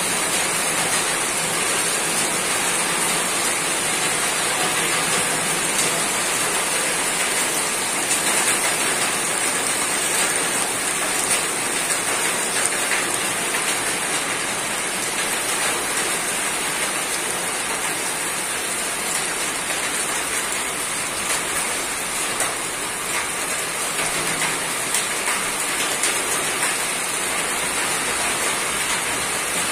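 Steady rain falling on a roof: a dense, even hiss made of countless small drop ticks, unchanging in strength.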